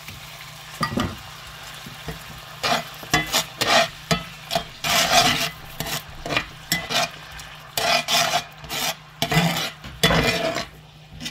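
Water hitting a hot cast iron pan of browned tomato paste and garlic, sizzling steadily as the pan is deglazed. From about two and a half seconds in, a metal spatula stirs and scrapes across the pan bottom in quick, irregular strokes.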